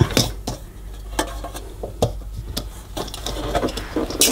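Irregular clicks and knocks from the casing of a Hoover Constellation cylinder vacuum cleaner being handled and turned, as the motor unit is pushed and pulled against its skirt, trying to release a hinge that won't shift. A cluster of sharp clicks comes at the start and the loudest knock near the end.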